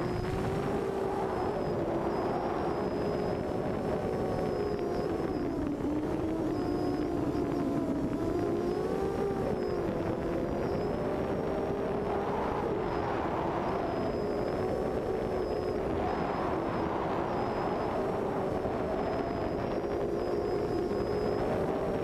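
Drone's Cobra C2213 2000kv brushless motors spinning 6 x 4.5 propellers, a steady whine whose pitch drifts up and down with the throttle, over a low rushing noise.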